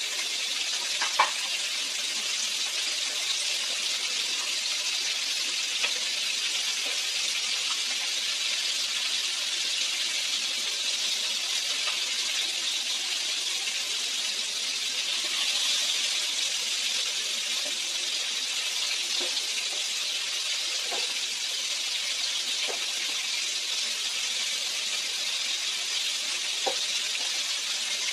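Pot of mung bean stew boiling hard on a gas stove: a steady bubbling hiss, with a sharp metallic clink about a second in and a few light clinks later.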